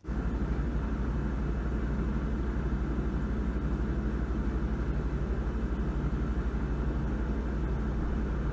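A running vehicle's steady low rumble with a fast, even pulse; it starts abruptly.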